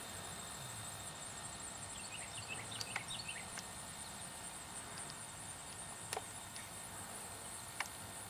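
Faint outdoor ambience with a steady high-pitched insect chorus, like crickets. There are a few brief chirps two to three seconds in and a couple of light clicks near the end.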